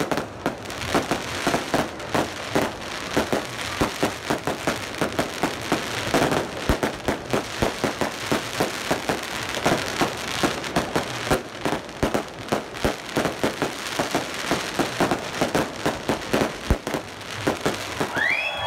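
Aerial fireworks bursting in a rapid, irregular run of bangs and crackles, several a second and of varying loudness.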